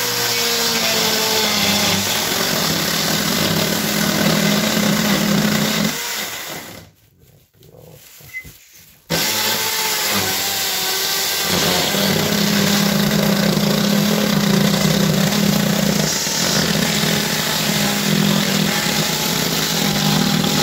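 Small handheld electric saw cutting through an OSB subfloor sheet, running steadily under load. The saw stops for a couple of seconds about six seconds in, then starts again and cuts on.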